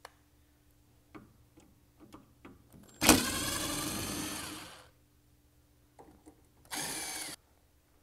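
Power screwdriver on an extension backing out Phillips screws from a tankless water heater's gas orifice block. The motor runs twice: once for nearly two seconds, starting with a sharp hit, and again briefly near the end. Small clicks of the bit and screws come before each run.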